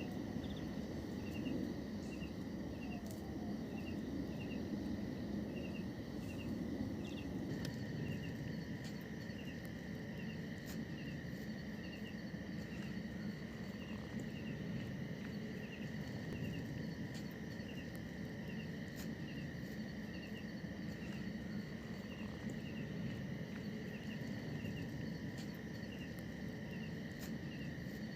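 Night-time insects chirping in the forest: a regular, repeating double chirp about once or twice a second over a steady high-pitched drone, with a dense low rumble of background noise underneath.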